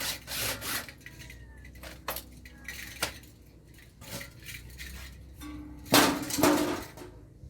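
Metal parts of an air-conditioner condenser clanking and clattering as it is taken apart for scrap, in several separate bursts with the loudest about six seconds in.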